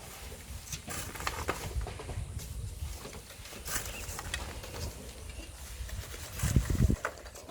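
Volcanic sand being worked by hand: scattered gritty scrapes and pattering of sand over a low rumble. About six and a half seconds in, a louder low thump-and-rumble lasts roughly half a second.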